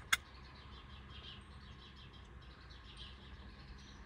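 Faint birds chirping against a low steady hum of background noise, with a single sharp click right at the start.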